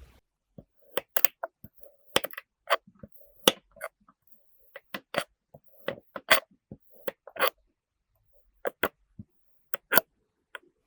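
Kinetic sand being squished and crushed by hand: a string of sharp, irregular crunches and crackles with short gaps between them.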